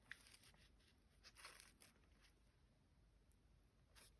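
Near silence: room tone with a few faint soft rustles and taps from handling.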